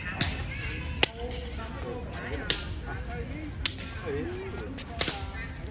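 Shuttlecock being kicked: five sharp slaps of a foot striking the shuttlecock, at an even pace a little over a second apart.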